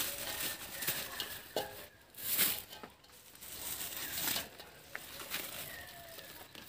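Shopping wrapped in paper and plastic rustling and crackling, with irregular knocks and clatter as groceries are unloaded and set down.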